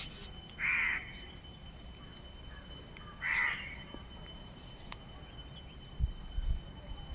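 A crow cawing twice, a few seconds apart, each caw short.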